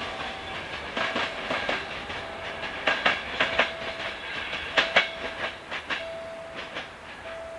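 Passenger train carriages clattering over rail joints in a run of sharp clicks, fading as the train moves away. A thin steady tone comes and goes through it.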